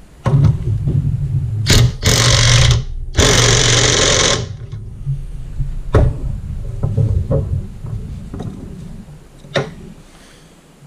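Cordless impact gun running a 24 mm fitting down on a hydraulic floor jack: a short spin, then two loud bursts of hammering with a brief pause between as the fitting is tightened. A few light knocks follow once it stops.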